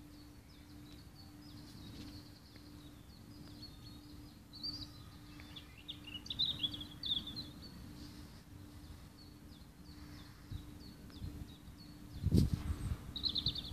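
Small birds chirping and twittering on and off, with a faint steady hum underneath. There is a single thump on the microphone near the end.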